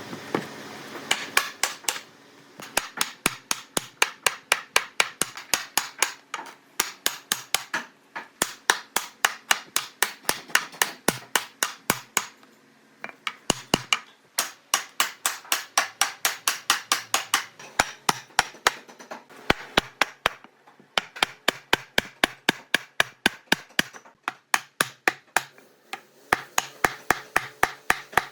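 Rapid hammering on wood, about four sharp blows a second, in runs broken by short pauses.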